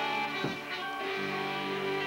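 Live rock band playing, with guitars ringing out in sustained chords. A new chord is struck about half a second in and the harmony changes again a little after a second.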